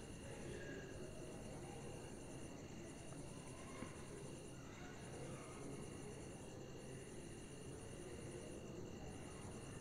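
Faint high-pitched insect trilling, in trains about two seconds long with short breaks between them, over low background noise.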